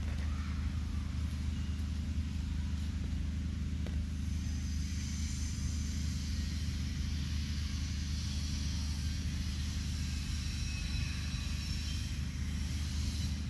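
Steady low rumble, like a vehicle engine or traffic. Faint high-pitched tones join in from about four seconds in.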